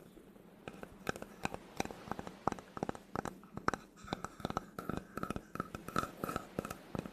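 Quick, irregular taps and scratches on a wooden object, with a faint ring on some strokes in the second half.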